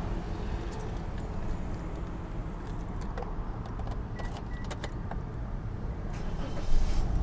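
Car keys jangling and clicking at the ignition of a Toyota Rush as the engine is about to be started, with two short chime beeps about halfway through. A louder low rumble comes in near the end as the engine starts.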